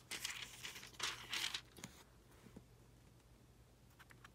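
Pages of a study Bible being turned by hand: two papery rustles in the first second and a half, then a few faint soft touches.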